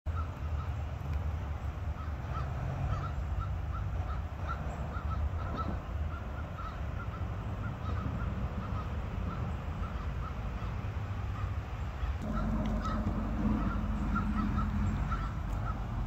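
An animal calling with a steady run of short chirps, about two a second, over a low outdoor rumble that grows louder with a low hum about three-quarters of the way through.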